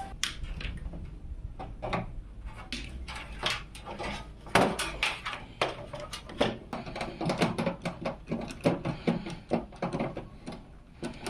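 Irregular clicks, taps and knocks of computer hardware being handled and fitted together during a PC build, the loudest knock about halfway through.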